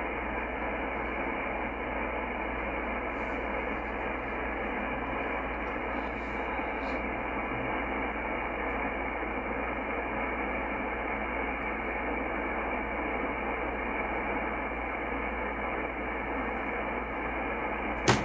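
Yaesu FTdx10 shortwave transceiver's speaker giving steady static hiss in upper sideband while the dial is tuned slowly through the empty lower end of the 17 MHz marine and utility band, with no clear signal coming through. One short click near the end.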